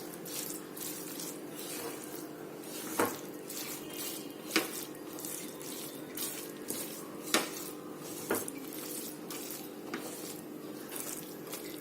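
Metal spoon stirring and mixing cooked Maggi noodles, with a few sharp clinks of the spoon against the dish spread through. A steady low hum runs underneath.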